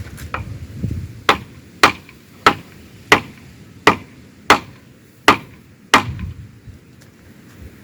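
A hammer striking wood with eight sharp, evenly paced blows, about two-thirds of a second apart, starting about a second in and stopping around six seconds in.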